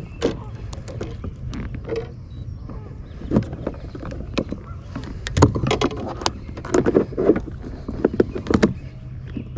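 Irregular knocks and clatters from handling on a small boat, sparse at first and then a busy flurry over the second half, over a steady low hum.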